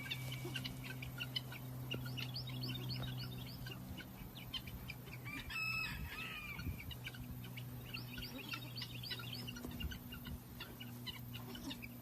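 Birds chirping: many short high chirps throughout, with one louder, longer call about six seconds in, over a steady low hum.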